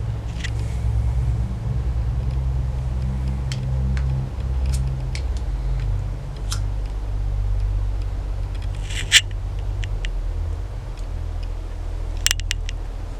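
A steady low rumble with scattered small clicks and handling noises, and one short scratchy strike about nine seconds in, as candles are being lit.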